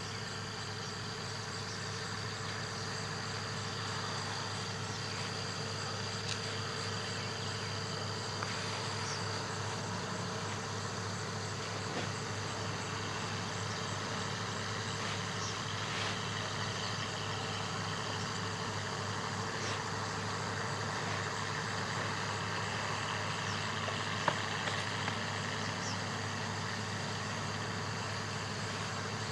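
Steady low hum, engine-like and unchanging, with a thin high insect call over it that drops out about nine seconds in.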